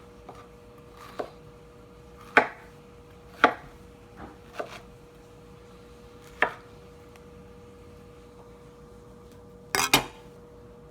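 Sharp knocks and clatters of kitchen tools and dishes being handled on a counter: about half a dozen separate hits a second or more apart, with a louder double clatter near the end, over a steady hum.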